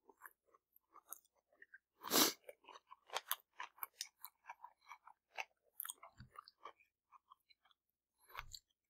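Close-up eating sounds: chewing and mouth noises from rice noodles and a chicken skewer, made up of many short, faint clicks and ticks. A louder noise comes about two seconds in.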